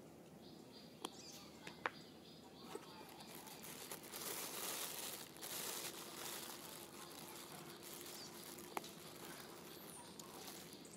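Faint outdoor background with a swell of rustling a few seconds in and a few sharp clicks scattered through it.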